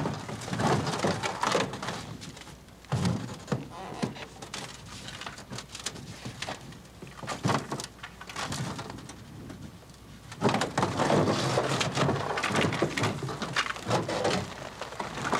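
Small aluminum rowboat being shoved over broken shore ice: irregular scraping, knocking and crunching of the hull and ice chunks, louder and busier from about ten seconds in.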